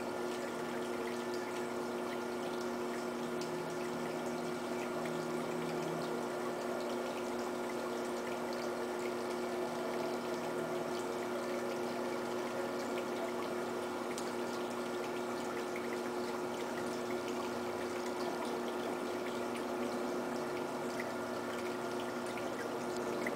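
Potter's wheel turning under a large wet-clay pot as the wall is pulled up by hand: a steady hum with an even hiss of hands sliding on wet clay.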